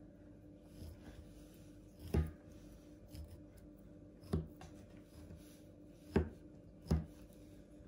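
A kitchen knife stabbing incisions into a raw veal joint, its blade knocking on a plastic cutting board: four sharp knocks a second or two apart, the last two close together.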